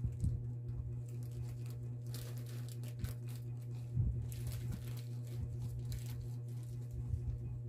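White plastic mailer pouch crinkling and rustling as it is handled, in irregular bursts with a few soft knocks, over a steady low hum.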